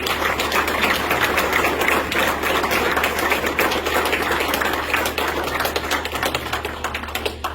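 Small audience applauding, many hands clapping fast and close together; the clapping fades out near the end.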